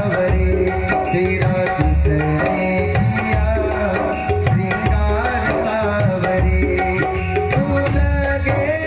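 Instrumental interlude of a Hindi devotional bhajan: a wavering melody instrument carries the tune over a steady Indian hand-drum rhythm with deep bass beats about once a second.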